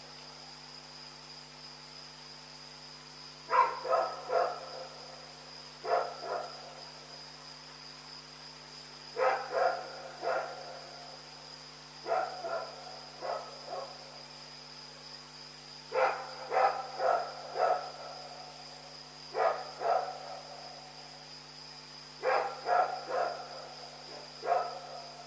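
Dog barking repeatedly in short bouts of two to four barks every few seconds, over a steady high-pitched tone and a low hum.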